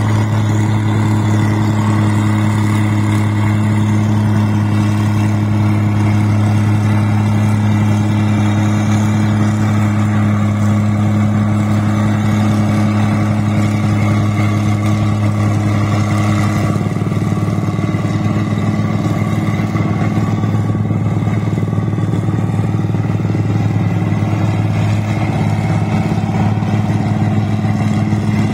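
Combine harvester's diesel engine running steadily under load as the machine cuts and threshes rice, a continuous low drone. A little past halfway the low part of the drone turns rougher and less even.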